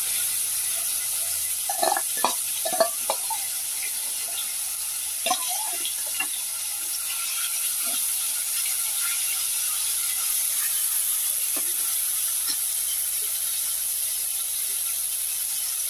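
Marinated mutton pieces frying in hot oil in an aluminium kadhai with a steady sizzle, while a steel spoon stirs them, clinking against the pan several times a couple of seconds in and a few more times later.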